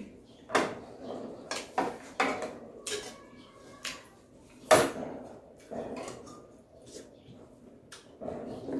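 Close-up eating sounds: chewing and mouth noises, with scattered clinks of a metal spoon against ceramic plates, the sharpest about five seconds in.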